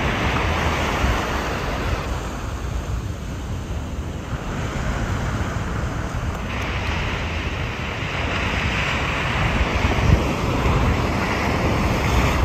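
Ocean surf breaking and washing up the sand, with wind buffeting the microphone. The hiss of the water grows brighter about halfway through.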